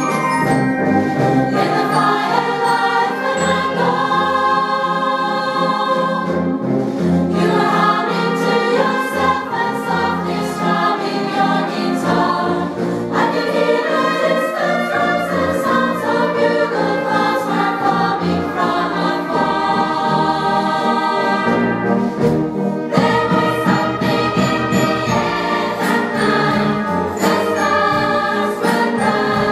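Large women's choir singing in full voice, with a wind band playing along.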